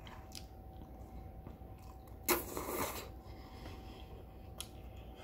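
Close-miked chewing of a mouthful of teriyaki chicken and noodles, with soft wet mouth clicks and a short, loud mouth noise about two seconds in.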